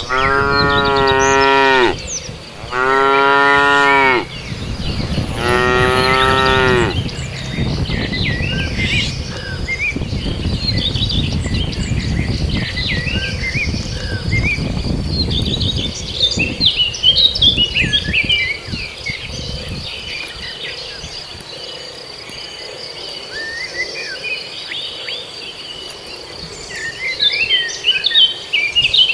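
A cow mooing three times, each a long, loud call of about two seconds, in quick succession. Then birds chirp, over a steady high insect whine.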